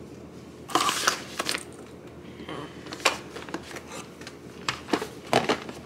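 Food containers and a small jar being handled and set down while packing an insulated lunch bag: a cluster of short knocks and rustles about a second in, a single knock around three seconds, and a few more near the end.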